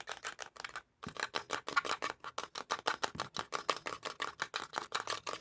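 Buttons of a remote control pressed and clicked in quick succession, several sharp clicks a second, with a short pause about a second in.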